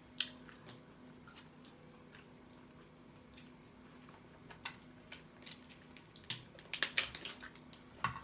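Close-up mouth sounds of a person eating a crab and lobster seafood boil: chewing and lip smacking, with scattered sharp clicks and a dense run of them about seven seconds in. A faint steady hum sits underneath.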